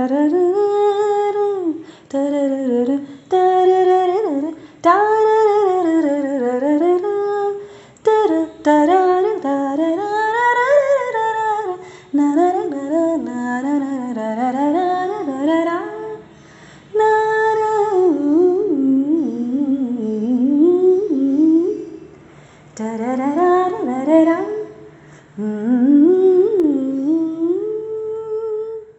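A single voice humming a wordless melody, its pitch gliding up and down in short phrases separated by brief pauses.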